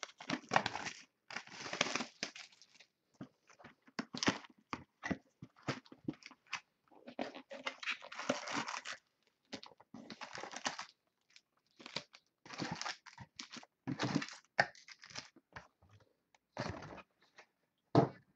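A trading-card box being opened by hand: wrapping torn and crinkled in irregular bursts, with cardboard and card packs rustling.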